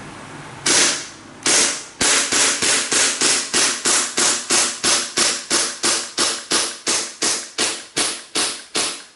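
WE Glock 17 gas blowback airsoft pistol test-fired through a full magazine of 0.25 g BBs. Two single shots come first, then a steady string of about three shots a second, each a sharp report with a short ringing tail. The pistol is cycling normally.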